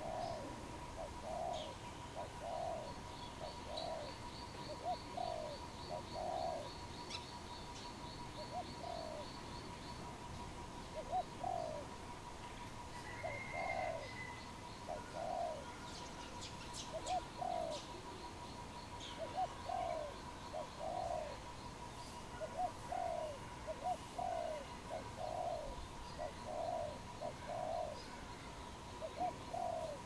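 Spotted dove cooing: a long run of short, low coos about once or twice a second, with a steady faint tone behind them. A thin high trill joins during the first third, and a few faint high chirps come around the middle.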